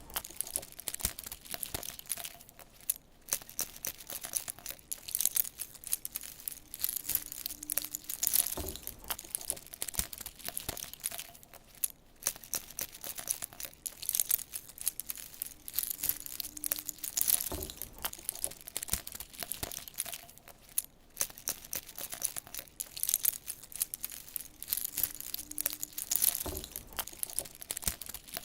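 Dense crinkling and crackling of packaging being handled and torn open, with a soft knock about every nine seconds.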